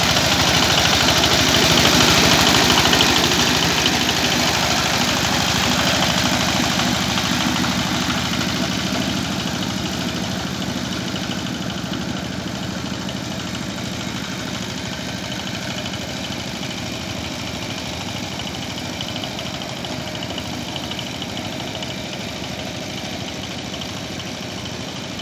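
Single-cylinder diesel engine of an ACI R28 two-wheel power tiller running steadily as the machine puddles a flooded paddy field on cage wheels, its even firing beat growing fainter as it moves away.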